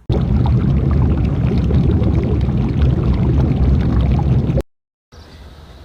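Loud, low rumbling noise that cuts off suddenly about four and a half seconds in.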